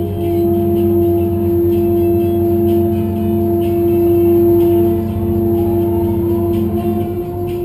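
Liebherr LHM 400 mobile harbour crane's machinery running under load: a steady hum with a strong constant whine, its pitch shifting slightly about five seconds in.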